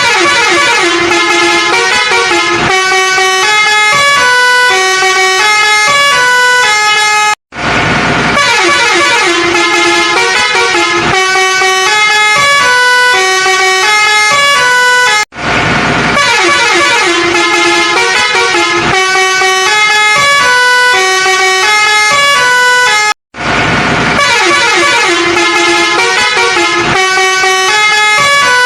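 A short horn-like tune of stepped notes, played over and over about every eight seconds with a brief silent break between repeats.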